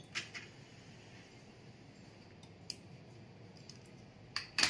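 A handful of short, sharp clicks over a quiet background, two just after the start, a single one midway, and a louder pair near the end, like small plastic parts being handled and pressed.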